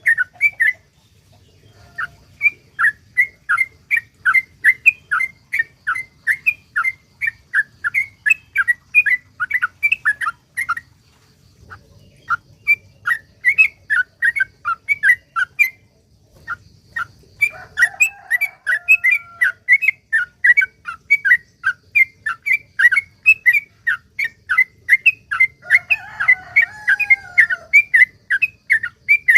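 Yellow-vented bulbul (trucukan) singing a long, fast run of sharp repeated chirps, about three a second, in long strings with brief pauses. This is the 'ropel panjang' style of song used to call other trucukan. Fainter, lower warbling notes come in twice, near the middle and near the end.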